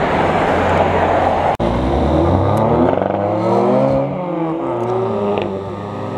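Car engine accelerating past close by: its note climbs, drops in pitch as it goes by about three to four seconds in, then climbs steadily again as it pulls away. Before that, a dense rumble of engine and road noise breaks off suddenly about one and a half seconds in.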